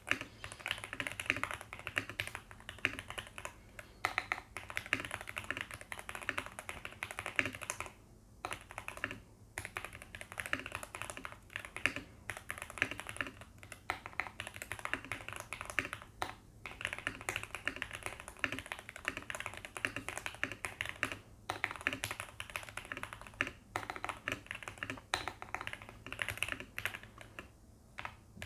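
Typing on a Heavy Shell Kira96 96% mechanical keyboard with factory-lubed Gateron Pro Yellow linear switches and doubleshot PBT keycaps: a fast, continuous run of keystrokes with a few brief pauses. The board is tape-modded and foam-modded to sound poppier and thockier.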